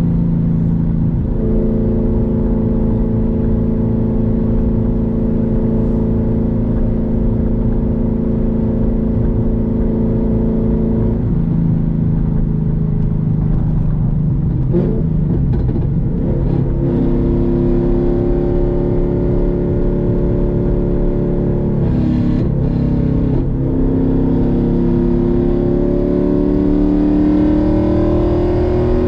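Boss 302 Mustang's 5.0 L V8 running through aluminized steel side pipes. It holds a steady cruise for the first stretch, then its pitch shifts about halfway and climbs twice as the car accelerates, with a break between the two climbs.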